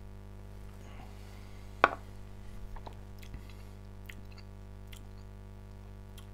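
Tasting glass set down on a wooden board with one sharp knock about two seconds in. Soft mouth and lip sounds and small clicks follow as a sip of whisky is held and worked around the mouth, over a steady electrical hum.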